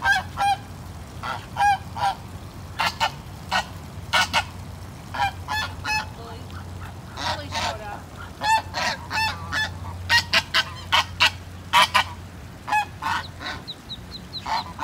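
Domestic geese honking in short, repeated calls, some single and some in quick runs, with faint high peeping of ducklings near the end.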